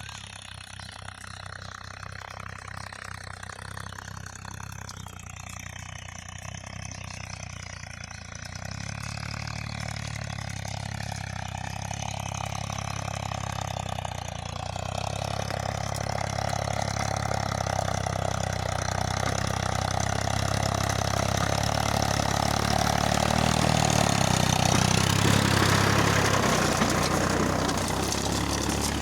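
Farmtrac 45 Supermaxx tractor's diesel engine running steadily while pulling a Lemken two-furrow reversible plough, growing louder throughout and loudest a few seconds before the end.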